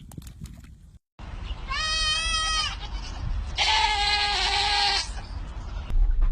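An animal calling twice: two drawn-out cries of about a second each, the second harsher, over a low rumble.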